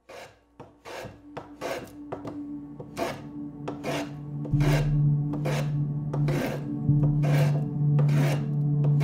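Stiff broom sweeping debris across a concrete floor, in rough scraping strokes about once or twice a second. A low steady drone comes in about halfway.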